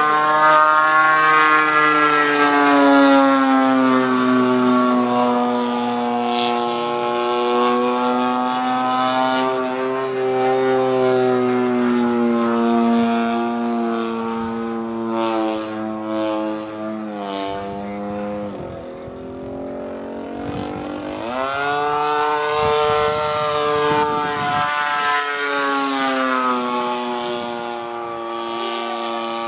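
Single-cylinder two-stroke gasoline engine and propeller of a 55cc radio-controlled Extra 300 model plane in flight, its pitch sliding up and down with throttle and passes. About two-thirds of the way through it throttles back and drops in pitch and loudness, then opens up again.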